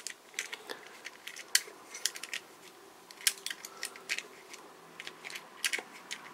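Small hard-plastic clicks and rubbing, irregular and scattered: a toy missile being pushed and twisted into a small spring-loaded plastic launcher, trying to get it to latch.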